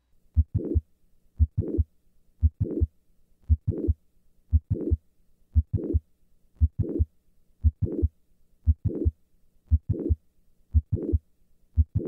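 Stethoscope recording of a heartbeat at the cardiac apex in mitral valve prolapse, about one beat a second, each beat a pair of heart sounds with a mid-systolic click and late systolic murmur between them. This is typical of classic mitral valve prolapse.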